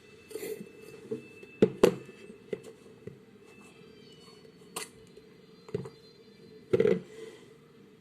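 Slime being played with by hand: scattered sharp clicks and pops, a close pair about two seconds in and a few more further on.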